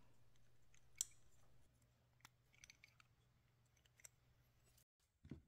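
Near silence with a few faint, scattered clicks of small parts being handled as the flashlight's switch circuit board is pressed into the tail of its aluminium body. The sharpest click comes about a second in.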